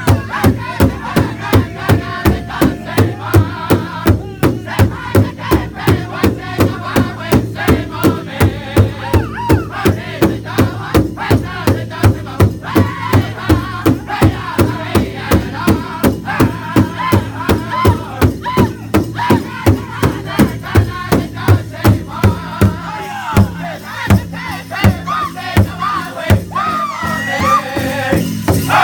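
Powwow drum group singing a Grand Entry song: several singers striking one large drum together in a steady beat of about two and a half strokes a second, under high-pitched group singing. The drumbeat breaks off in the last few seconds while the voices carry on.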